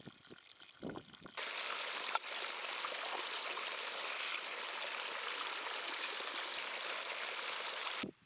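Water running in a steady rush that starts suddenly about a second and a half in and cuts off just as suddenly near the end, after a few faint knocks and a thump.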